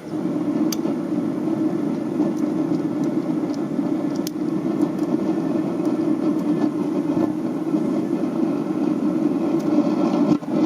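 Propane burner of an Atwood RV water heater burning with a steady low rush, with a brief dip near the end; the flame is being tuned for a consistent burn.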